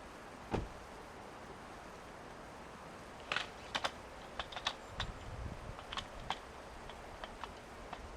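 Steady rushing water, with a single low thump about half a second in and then a run of small sharp clicks and taps from about three seconds in until shortly before the end.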